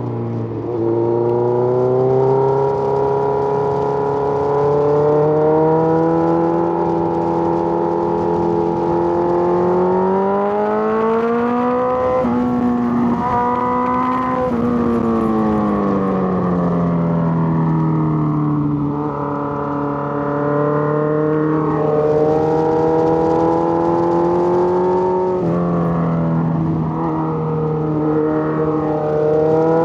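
Suzuki GSX-R1000 inline-four engine under way, its pitch climbing steadily under throttle for about ten seconds, falling back as the bike slows, then jumping up sharply near the end.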